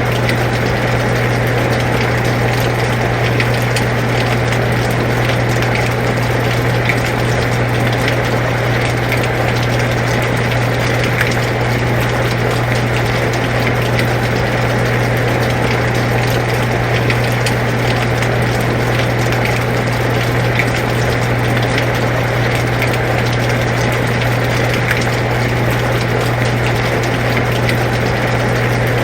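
Air conditioner running with a steady low hum, together with steady rain falling, its scattered drops ticking faintly through the hiss.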